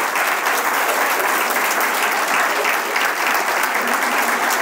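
A large audience clapping steadily, the applause continuous and unbroken.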